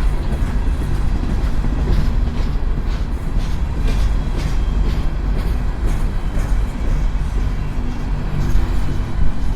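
Empty coal train of hopper cars rolling past while slowing, its steel wheels clattering on the rails over a steady low rumble.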